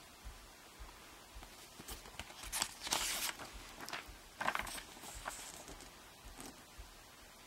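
Printed paper cover insert being pulled out of a plastic Blu-ray case and opened flat: rustling paper rubbing on plastic in two bursts, about three seconds in and again a second and a half later, with light handling taps around them.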